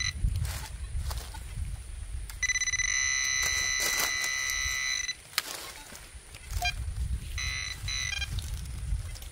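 Handheld metal-detecting pinpointer giving a steady electronic buzz for nearly three seconds, then a quick run of short beeps: the alert for a metal target in the dug hole, here a coin.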